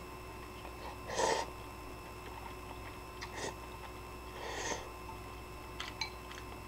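A person slurping ramen noodles from a bowl in three short slurps, the loudest about a second in, followed by a few small clicks near the end.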